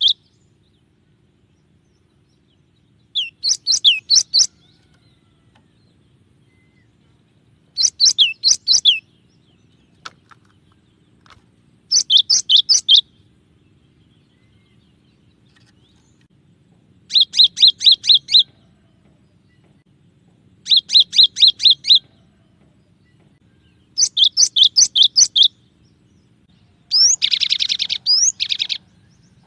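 Cinereous tit (gelatik batu) singing: short phrases of rapidly repeated high whistled notes, each phrase about a second long and coming every few seconds, seven in all. The last phrase, near the end, is longer and buzzier.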